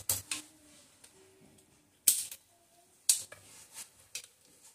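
Sharp, irregular clicks and taps of gear shift parts being fitted by hand into the open aluminium crankcase of a Hero Honda HF Deluxe engine. Two louder clicks come about two and three seconds in, with a few lighter taps after them.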